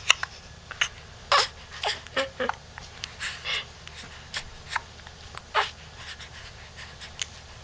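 Two-month-old baby hiccuping: a run of short, sharp hiccups, roughly one or two a second and unevenly spaced, some with a small baby vocal sound.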